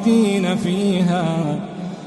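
A reciter's voice chanting Quranic recitation in the melodic tajweed style, drawing a syllable out and winding its pitch up and down, with no clear words. It falls a little quieter near the end.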